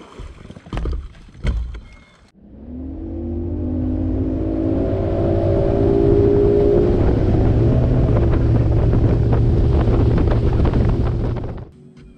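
Bass boat outboard motor accelerating, its pitch rising as the boat gets up to speed, then running steadily at speed until it stops suddenly near the end. A few knocks in the first two seconds.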